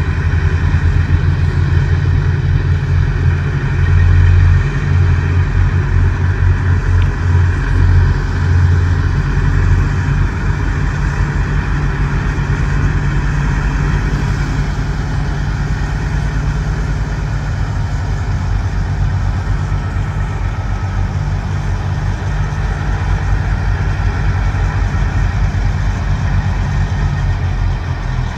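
Heavy diesel engines of semi trucks running at low speed as they drive slowly past, a deep pulsing rumble. It is loudest over the first ten seconds or so as the closest truck goes by, then steadier.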